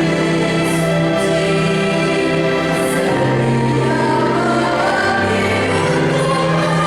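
A junior high school choir singing in several parts, holding long chords; the lowest part steps down to a lower note about three seconds in and again about five seconds in.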